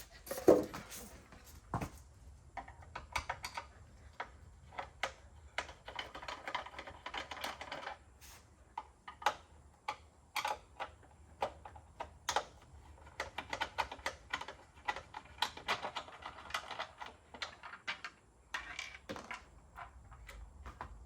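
Irregular small clicks and taps of hand tools and plastic parts being worked, with scratchy stretches a third of the way in and again past the middle, as screws and side panels are handled on a trolling motor.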